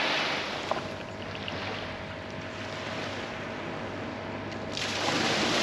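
Steady wind and rushing water at the shore, with a faint steady hum for a few seconds in the middle.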